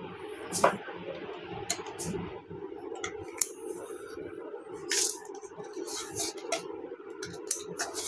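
Scattered sharp clicks and short rustles of a motherboard and its stock CPU cooler being handled as the cooler is fitted and locked onto the board, over a steady low hum.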